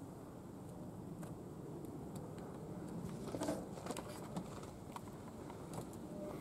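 Faint scuffs and scrapes of shoes and hands on a brick wall and window frame as a person climbs up, with a louder scrape about three and a half seconds in, over quiet outdoor background noise.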